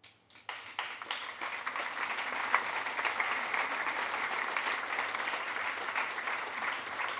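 Audience applauding: dense clapping that starts just as the speaker finishes, builds within the first second and then holds steady.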